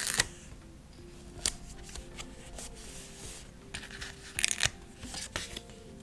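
Stickers being peeled off a paper sticker sheet with tweezers and handled onto a journal page: short papery peeling and rustling sounds, loudest right at the start and again around four seconds in, over soft background music.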